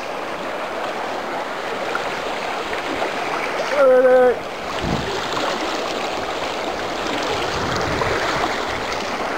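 Shallow river rushing steadily over stones. About four seconds in, a person gives one short, loud, flat-pitched shout.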